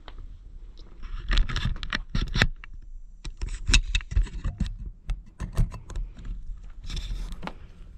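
A run of irregular knocks, clicks and scrapes, with a short scraping stretch near the end.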